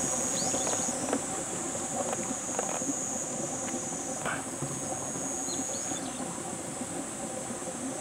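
Shallow forest stream trickling and burbling over small stones, a steady murmur with many small ticks and splashes. A steady high-pitched insect drone runs over it.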